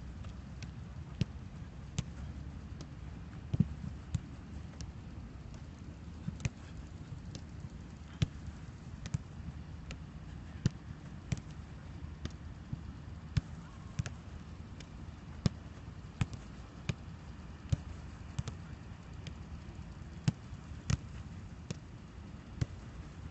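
A football being kicked and controlled back and forth between two players in a passing drill: a sharp thud of foot on ball roughly once a second.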